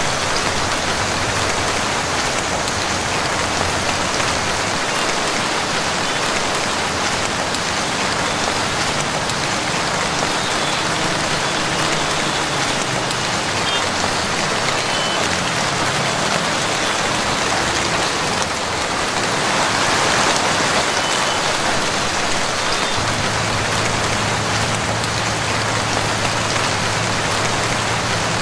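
Heavy rain falling steadily, an even hiss of rain on surfaces. A low steady hum joins near the end.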